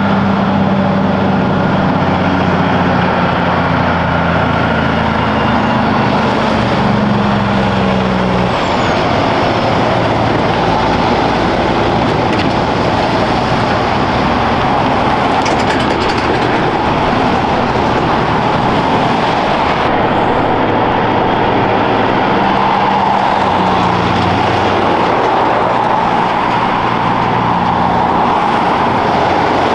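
Heavy diesel trucks passing on the highway one after another. A low engine note holds for the first eight seconds or so and then drops away, leaving mostly steady tyre and road noise; the engine note comes back for a few seconds later on.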